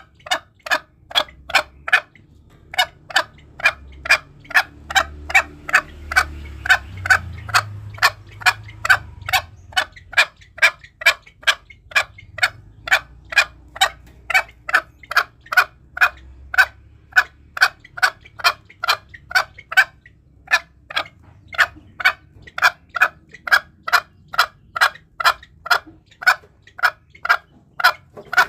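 Green junglefowl giving a long run of short, sharp calls, about three a second, with a couple of brief breaks.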